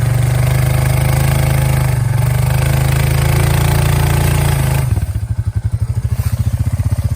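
Single-cylinder Honda ATV engine running steadily under load while skidding a log. About five seconds in the throttle comes off and it drops to a slower, lumpy idle.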